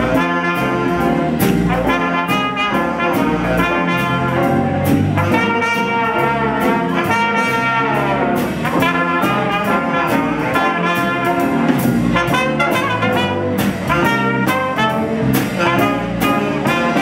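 Jazz big band playing, with trumpets, trombone and saxophone sounding together over guitar, bass and drums.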